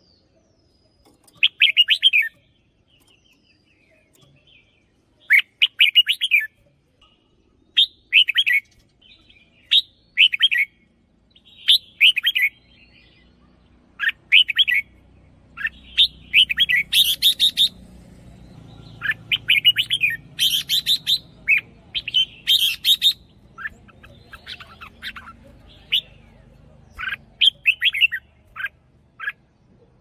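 Red-whiskered bulbul singing short, bright whistled phrases, one every couple of seconds at first, then closer together from about halfway through.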